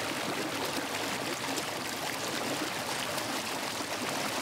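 Churning wake water rushing and splashing behind the stern of an Avon eJET 450 electric tender under way. No motor note is heard over the water.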